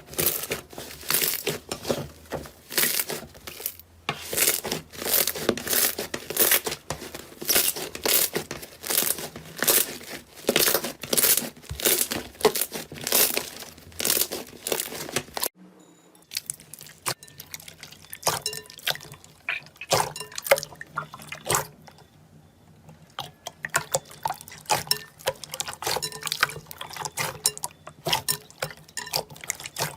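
Slime being squeezed and worked by hand, making rapid wet clicks, pops and crackles. About halfway through it cuts to a quieter stretch with sparser pops.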